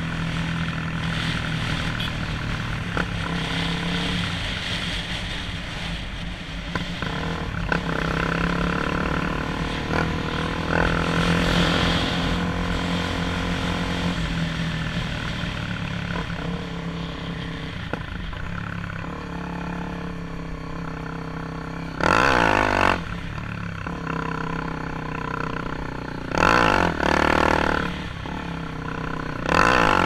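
Honda XRE 300's single-cylinder four-stroke engine running under way, its note rising and falling with the throttle. Three short, much louder blasts come in the last third.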